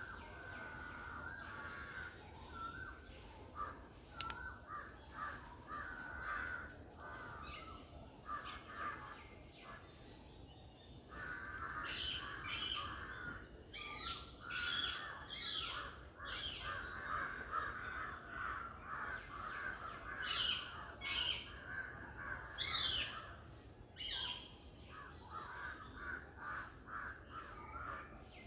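Garden birds calling: a near-continuous run of harsh, repeated calls, with sharper high chirps joining in the middle stretch.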